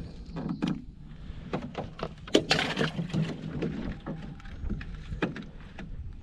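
A run of short knocks and clatter, with a louder clatter about two and a half seconds in.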